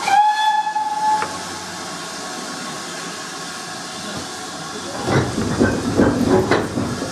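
Steam whistle of GWR 4200-class 2-8-0 tank engine 4270 sounding once for about a second and cutting off sharply, over a steady hiss of steam. About five seconds in, the locomotive's exhaust starts beating in a few heavy, uneven chuffs as it starts the train away.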